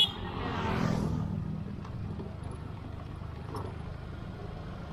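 Riding a motorbike downhill: a steady low engine hum with road and wind noise. A sharp click comes at the very start, and about a second in a swell of noise rises and falls as an oncoming scooter passes.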